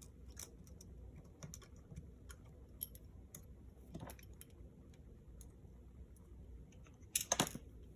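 Faint, scattered small clicks and taps of a precision screwdriver and small metal parts on a MacBook Air's aluminium case as a tiny screw is removed, with a louder cluster of clicks near the end.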